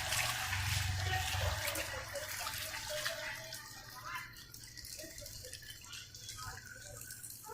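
Floodwater running, a steady watery hiss, with a low engine-like rumble fading out over the first second or two.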